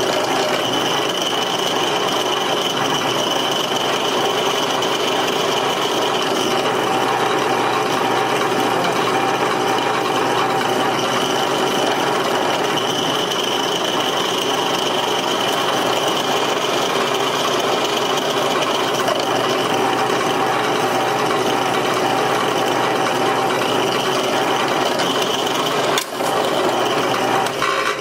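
Electric drill running steadily while its bit drills holes for the pocket clip in a folding knife's handle, with a short break near the end.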